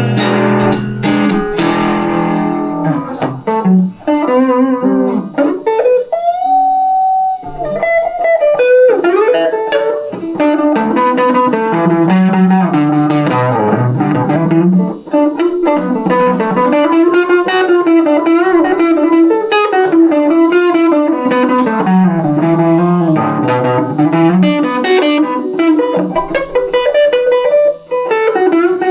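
Electric guitar, a Van Zandt Telecaster through a Roland JC-120 amp, playing an instrumental passage of melodic lines with bent notes and vibrato. A long held note comes about six seconds in.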